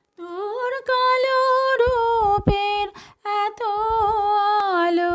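A woman singing a Bengali Shyama Sangeet, a devotional song to Kali, in a solo voice that holds long, sliding notes.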